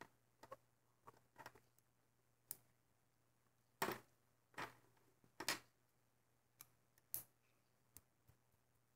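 Faint, irregular clicks and taps of rubber loom bands being stretched and slipped onto the pegs of a small plastic Alpha Loom, with a few louder snaps near the middle.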